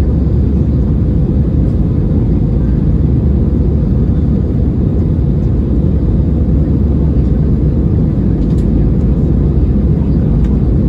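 Steady low rumble inside the cabin of an Airbus A320-216 in its climb after takeoff: the CFM56 engines and the airflow over the fuselage, even and unbroken.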